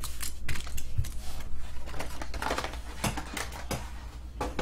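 Foil trading-card packs and a cardboard hobby box being handled and set down on a mat: a string of light, irregular clicks and taps over a steady low hum.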